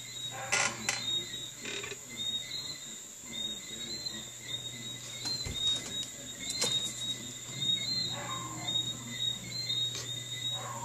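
Insects chirping in the background: a short high chirp repeating at an even pace over a steady high whine and a low hum, with a few faint clicks.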